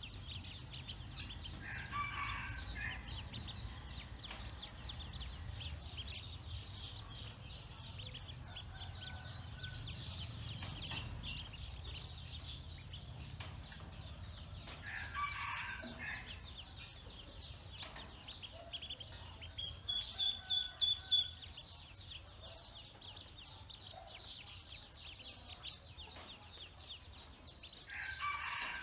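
A group of Pekin ducklings peeping constantly in rapid high chirps while they swim in a metal basin of water. A burst of about six loud peeps comes about two-thirds of the way through. Another bird gives three louder, lower calls about a second long: about two seconds in, midway, and near the end.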